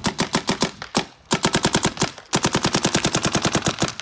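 Planet Eclipse electronic paintball marker firing rapid strings of shots, about a dozen a second, broken by two short pauses. It is being test-fired straight out of the box and is working.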